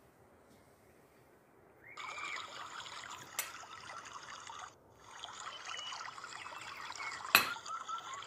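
Water trickling, starting suddenly about two seconds in and breaking off briefly midway, with two sharp clicks, the louder one near the end.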